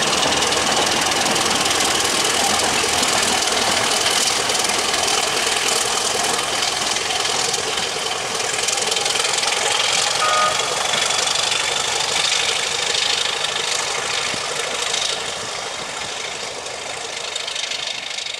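British Rail Class 31 diesel locomotive's English Electric engine running at the back of a departing train, with a thin high whine over it. It fades over the last few seconds as the train draws away.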